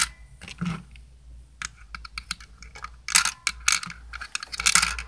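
Small plastic Lego carrot pieces clicking and clattering as they are dropped back into a toy produce stand's dispenser, in several short bursts of light clicks.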